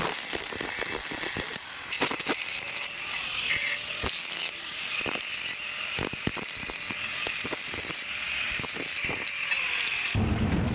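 Electric arc welding: a steady frying hiss with irregular sharp crackles, which stops shortly before the end.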